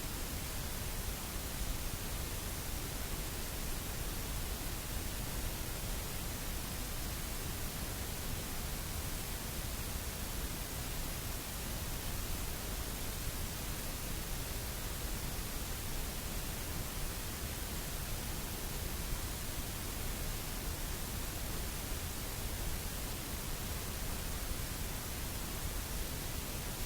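Steady, even hiss of background noise, with no speech or other sounds.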